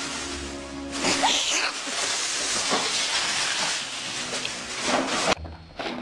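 Background music for about the first second. Then several seconds of loud, even hissing noise with a few brief sliding sounds. It cuts off suddenly near the end, and the music returns.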